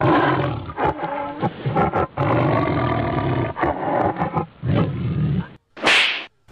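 A tiger roaring and growling in a string of low calls, one after another with short breaks, then a brief hiss of noise about six seconds in.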